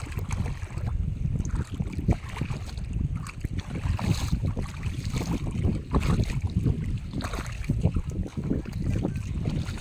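Wind buffeting the microphone in a steady low rumble, with irregular sloshing and squelching from footsteps wading through deep mud and shallow seawater.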